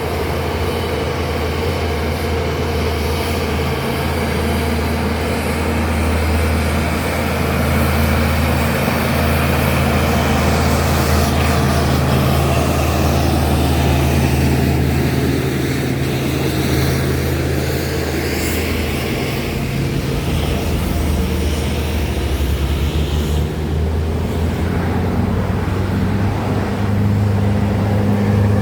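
Heavy diesel truck engine running under load as it climbs, a steady low drone with tyre and traffic noise. The engine note changes partway through, and another engine grows louder near the end.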